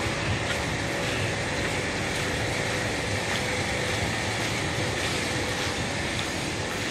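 A steady, even outdoor hiss at a constant level, with a faint steady hum and a few soft clicks.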